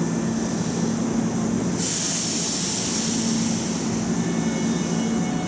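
Hankyu 8000-series electric train standing at the platform with a steady hum. About two seconds in, a loud hiss of compressed air starts and lasts some three and a half seconds, typical of the air brakes being released just before the train pulls out.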